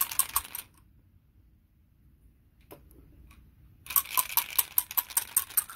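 Game dice rattling and clattering: a short flurry of clicks at the start, then a longer rapid run of clicks over the last two seconds as they are shaken and rolled.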